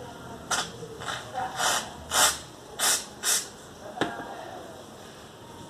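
Handling noise while making slime by hand at a table: about six short hissing bursts in the first three and a half seconds, then a single click about four seconds in.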